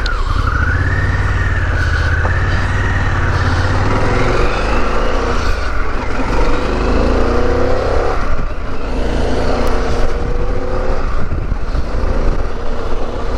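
Harley-Davidson Pan America's 1250 V-twin engine running as the motorcycle is ridden along a track, its pitch rising and falling with the throttle.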